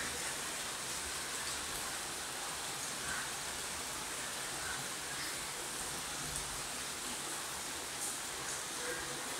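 Steady rain falling on palm fronds and garden foliage, an even hiss.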